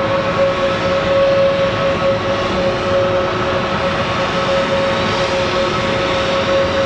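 Airbus A321neo taxiing, its Pratt & Whitney PW1100G geared turbofans running at taxi idle: a steady engine rush with a constant held tone over it.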